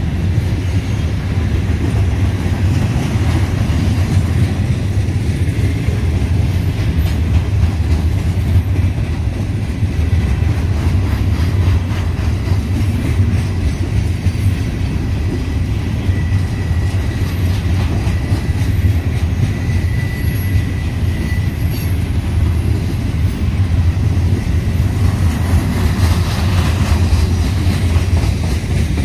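Freight train cars rolling steadily past, a continuous rumble with the clickety-clack of wheels over rail joints.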